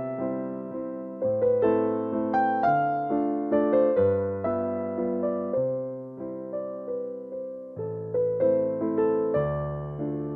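Background piano music: a slow melody over sustained chords and bass notes, each note struck and fading away.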